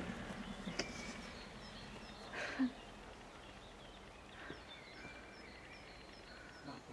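Outdoor ambience with small birds chirping: from about halfway through, a high call repeats about three times a second. A short, louder call or cry comes about two and a half seconds in.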